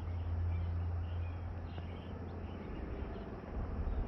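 Small birds chirping here and there outdoors over a low, steady rumble that is the loudest sound and swells briefly about a second in.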